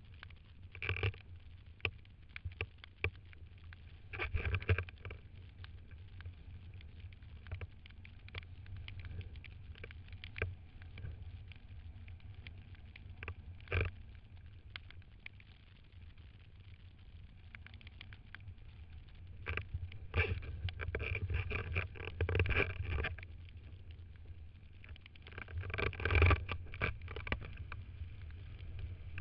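Muffled low rumble of wind and water on a camera mounted on a windsurf rig, with scattered knocks and clicks from the rig and a few short, louder splashing bursts. It grows busier and louder about two-thirds of the way through and again near the end, as the board gets under way.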